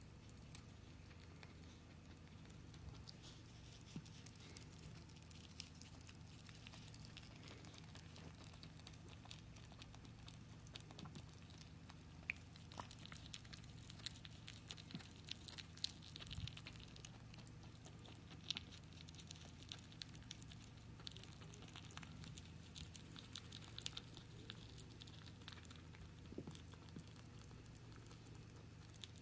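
Flemish Giant rabbit nibbling and chewing banana from a hand: faint, quick little clicks of biting and chewing, busiest in the second half, over a low steady hum.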